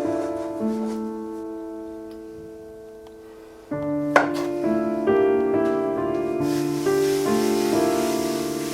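Background piano music. One phrase fades away over the first few seconds, then a new phrase starts with a bass line. A sharp click comes near the middle, and a soft hiss joins in over the last two seconds.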